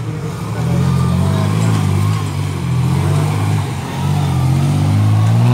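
Off-road buggy's engine revving under load as it climbs a dirt slope, its pitch rising and falling, dipping just before four seconds and climbing again near the end.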